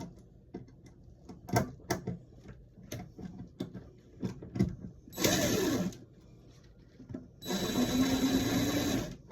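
Small clicks and knocks from handling, then a small electric motor runs twice: briefly, and then for nearly two seconds with a steady whine.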